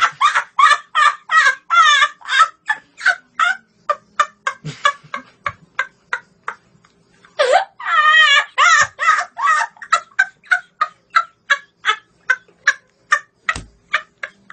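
A boy's high-pitched laughter in rapid pulses, about three or four a second. It breaks off briefly around six seconds in, then starts again with a longer rising squeal and carries on in quick bursts.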